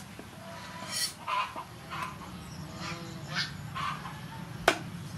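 Knife scraping and cutting a whole fish on a wooden chopping board, in a series of short rasping strokes, with one sharp chop against the board near the end.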